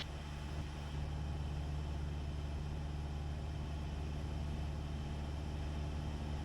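Cessna 172's piston engine and propeller droning steadily in level cruise, heard from inside the cabin.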